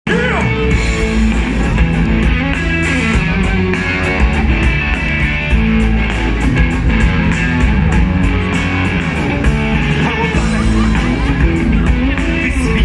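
A live rock band playing through a PA, heard from within the audience: electric guitar over bass and drums keeping a steady beat.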